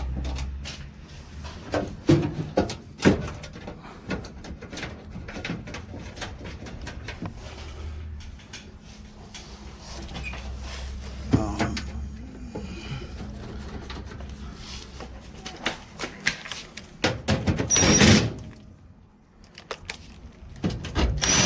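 Irregular knocks, clicks and clunks of sheet-metal dryer panels and screws being handled during reassembly, with a louder clatter near the end.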